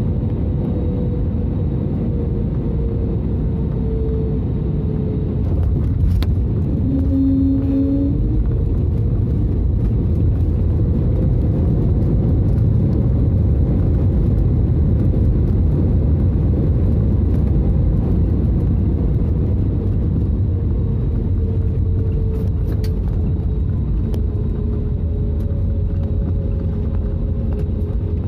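Cabin noise of a jet airliner on the runway: a steady engine and rolling rumble with a faint engine whine. It grows louder about six seconds in and eases off after about twenty seconds.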